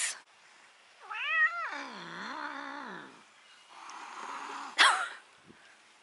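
A cat growling in a long, wavering yowl that falls in pitch, with hissing, then a sudden loud hiss shortly before the end: a cat warning off another animal.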